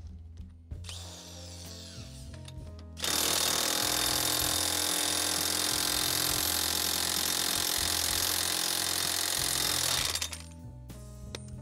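Corded electric impact wrench hammering on the rear axle castle nut of a Can-Am Maverick X3. It starts about three seconds in and runs for about seven seconds before stopping. The nut was put on too tight and is slow to break loose.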